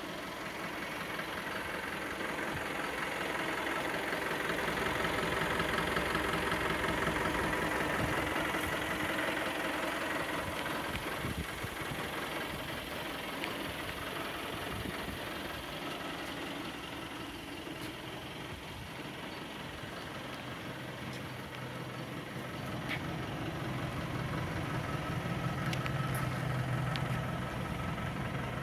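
The 3.0-litre diesel engine of a 2018 Isuzu Forward N55 150 truck idling steadily. Its low hum grows louder in the second half.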